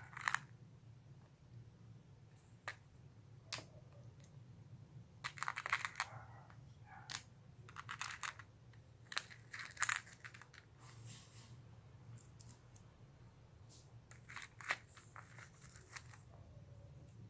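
Handmade clear slime with toppings being squished and pressed by hand, giving wet crackles and popping clicks in short bursts every few seconds.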